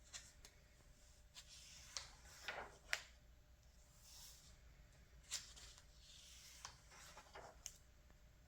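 Glossy magazine pages being handled and turned: soft paper swishes and rustles with several crisp ticks of paper, the sharpest about three seconds in.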